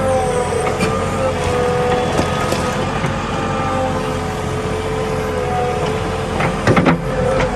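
JCB 3DX Xpert backhoe loader's diesel engine running under work with a steady whine whose pitch wavers slightly. A short clatter of knocks comes near the end.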